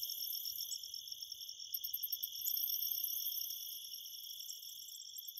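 Insects chirping in a steady, high-pitched chorus of rapid trills, like crickets at night.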